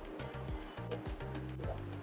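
Quiet background music with steady bass notes and a regular beat.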